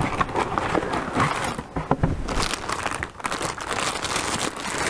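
Clear plastic packaging crinkling and crackling in the hands as a new pump and its fittings are unpacked, an irregular run of crisp crackles throughout.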